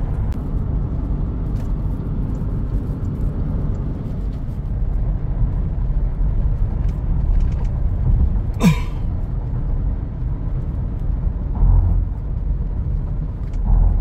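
Steady low rumble of a car's engine and tyres on the road, heard from inside the moving car's cabin. About two-thirds of the way through comes a short loud whoosh dropping in pitch, and near the end a couple of brief low swells.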